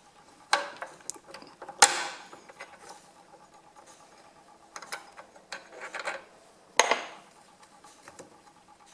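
Several sharp metal clanks and knocks with scraping between them as the clutch of a Husqvarna A100 chainsaw is worked at on its splined shaft, where it is stuck. The loudest knock, about two seconds in, rings briefly.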